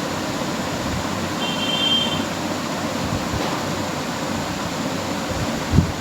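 Steady rushing noise, with a brief faint high tone about a second and a half in and a soft low thump near the end.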